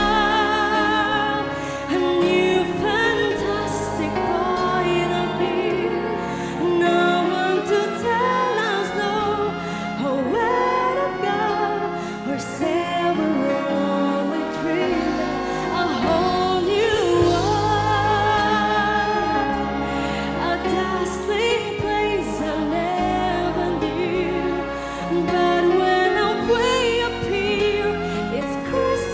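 Background music: a song with a singing voice over an instrumental backing.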